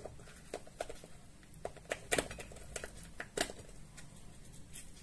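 Metal spoon scraping and clicking inside a cooked crab leg shell as the meat is dug out: scattered small scrapes and clicks, the loudest about two and three and a half seconds in.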